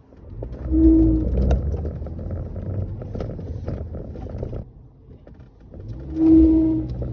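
Ford Grand C-Max pulling away twice. Each time the engine and road rumble swells and a short whoop-like whine sounds briefly, once about a second in and again near the end. This is the pulling-away noise the car's owner reports as a fault.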